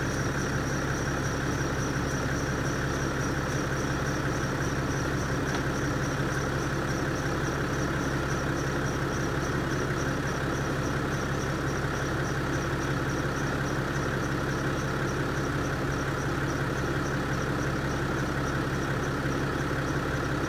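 BMW 525d diesel engine idling steadily, with a thin high-pitched whine over it that breaks into a rapid pulsing chirp, about three a second, some six seconds in. This is the weird start-up noise, cause unknown to the owner.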